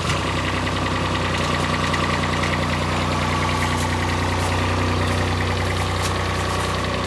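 Compact loader's engine running steadily at a constant pitch while its hydraulic arm lifts a wooden box on pallet forks.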